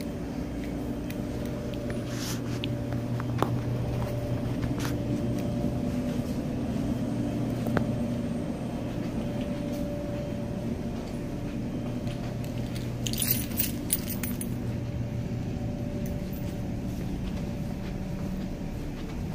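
Steady low hum of several held tones, with a few faint clicks and a brief high rattle about two-thirds of the way through.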